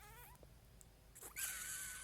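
A pet animal crying out in a high pitch: short sliding calls at first, then about a second and a third in a long, steady, high cry that holds on.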